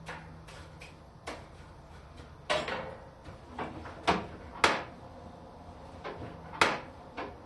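Irregular knocks and clunks from working at a coal forge, about half a dozen spaced a second or so apart, the loudest about four and a half seconds in and again near six and a half seconds.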